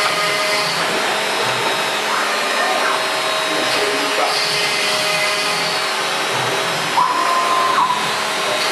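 CNC router spindle running steadily under dust extraction while it mills holes into a wooden board, giving a continuous motor and suction noise. About seven seconds in, a higher steady whine lasting under a second joins it as the stepper-driven gantry moves.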